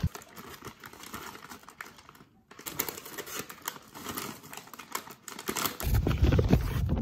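A brown paper bag and crinkly plastic snack packaging rustling as items are handled and pulled out, with a short pause about two and a half seconds in. Near the end the rustling grows louder and deeper as a hand brushes close over the microphone.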